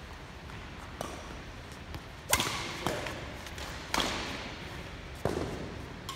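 Badminton racket strings smacking a shuttlecock in a rally, about five sharp hits a second or so apart, the loudest about two seconds in. Each hit rings briefly in the echo of a large gym hall.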